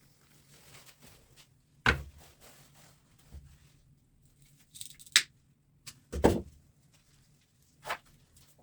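Scattered knocks and clinks of hand tools and metal parts while an electric fan motor is taken apart: four separate short strikes, the heaviest about six seconds in.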